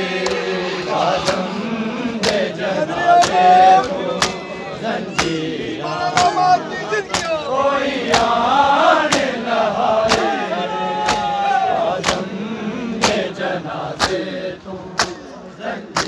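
A crowd of bare-chested men beating their chests in unison for matam, a sharp slap about once a second, while male voices chant a Punjabi noha (mourning lament) over the beat.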